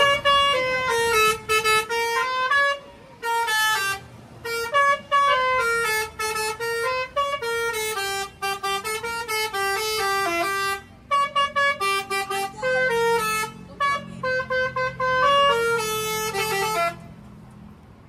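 Bus's telolet basuri horn playing a tune: a loud run of quick stepped notes forming a melody, broken by short pauses, stopping about a second before the end.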